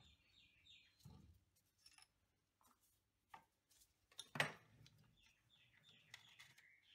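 Faint bird chirping: short falling notes repeated in runs, with scattered light clicks. About four seconds in there is one sharp knock, the loudest sound here, which comes from the machinery as the milling table is moved into position.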